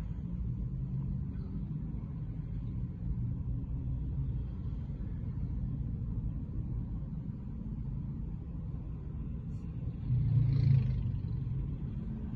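Low, steady city-traffic rumble heard from inside a vehicle. About ten seconds in it swells louder for a second or so as a vehicle passes close by.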